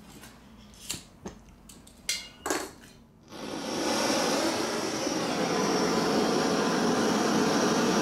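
A few light clicks and knocks, then about three seconds in a Campingaz gas blowtorch flame lights and burns with a steady hiss, heating the joint for soft soldering.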